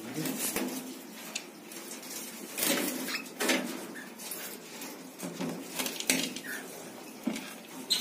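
Scattered clicks, knocks and scrapes of a clay pot nest being handled and opened inside a wire cockatiel cage, with a couple of brief squeaks.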